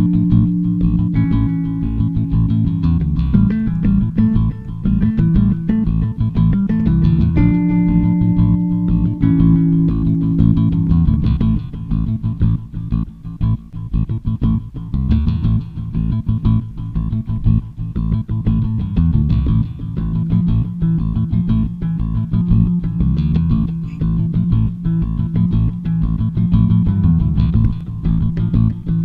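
Background music: a rock-style track with bass guitar and electric guitar and a steady beat.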